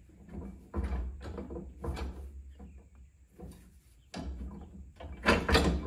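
Clunks and scrapes of a steel moldboard plow on a wheeled platform being shoved and shimmied into line with a tractor's three-point hitch arm, the platform shifting with a low rumble under the knocks. The loudest clunks come near the end.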